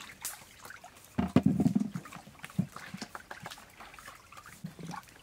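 A low-pitched animal call, loudest about a second in and lasting most of a second, with a few shorter calls after it. Light clicks of vegetables being set down on a metal tray run underneath.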